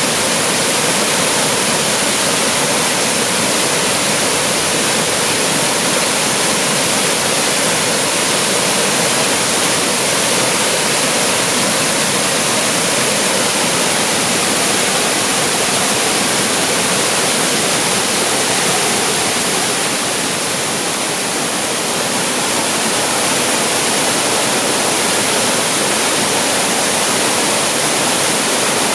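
Waterfall pouring steadily, a dense continuous rush of falling water.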